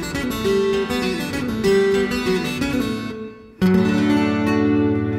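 Solo acoustic guitar music: a fingerpicked melody that thins out and fades, then a full chord struck about three and a half seconds in and left ringing.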